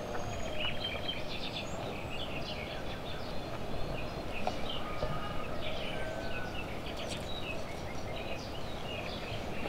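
Small birds chirping again and again over a steady background hiss of outdoor ambience.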